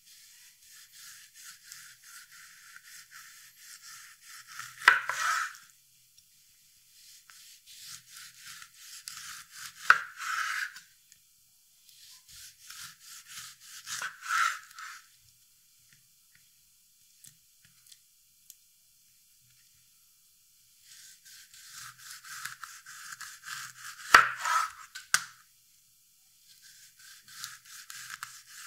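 Chef's knife sawing through oranges on a bamboo cutting board, one slice at a time. Each cut is a few seconds of rasping strokes through the peel and flesh, ending in a sharp tap as the blade meets the board. Four cuts, with a pause of several seconds in the middle, and a fifth begins near the end.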